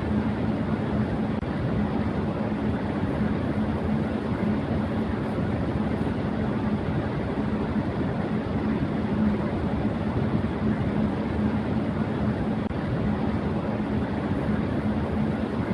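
Electric fan running at high speed: a steady whoosh of air with a constant low hum from the motor.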